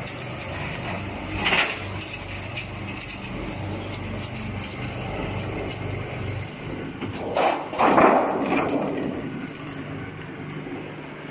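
The electric drive of a roller machine flattening a steel oil-drum body hums steadily, with a single knock about one and a half seconds in. About seven and a half seconds in comes a loud metallic clatter as the curved steel sheet lands on concrete, dying away over about a second and a half.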